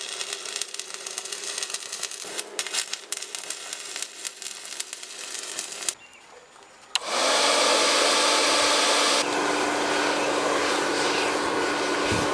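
Electric power tool motor running: a scratchy, uneven grinding for the first half. After a short lull, a louder, steady whirring with a constant hum starts about seven seconds in.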